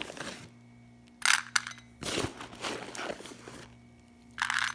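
Dry parrot pellets and seeds being mixed in a food bowl: a few separate crunching, rattling bursts, one longer than the others, over a faint steady hum.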